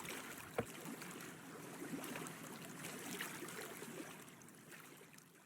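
Small waves lapping and trickling against a boat hull, with one knock about half a second in, fading out near the end.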